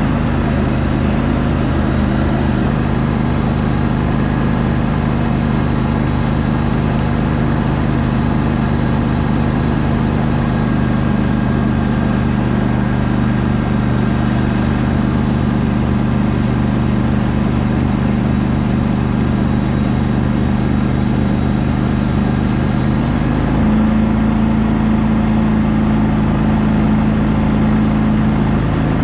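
Gator Tail GTR40XD surface-drive mud motor running at a steady cruising speed as the boat travels, with water rushing along the hull. About three-quarters of the way through, the engine note shifts slightly as the throttle changes.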